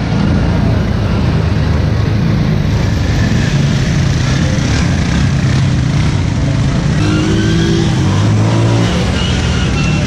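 Quad-bike ATV engines running as the four-wheelers drive past close by, with a steady low rumble and a louder engine hum from about seven to nine seconds in.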